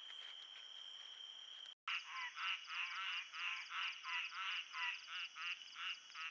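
Frogs calling, a run of quick pulsed croaks repeating about three times a second over a high, steady insect trill. For the first couple of seconds only the insect trill is heard, and then the sound breaks off for a moment before the croaking starts.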